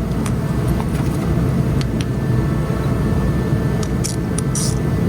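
Steady low mechanical rumble, with a few light clicks and taps scattered through it.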